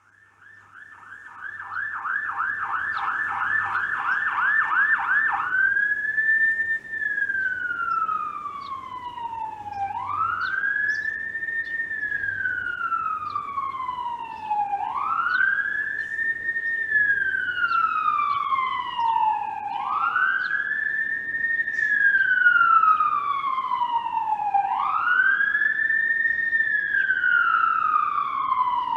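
Toronto ambulance siren growing louder as it comes closer. It starts with a fast yelp of about three sweeps a second, then switches about five seconds in to a slow wail that rises quickly and falls slowly, about once every five seconds.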